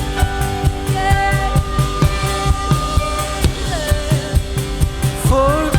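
Live worship band music: a drum kit keeps a steady beat under held chords, with a voice singing briefly near the end.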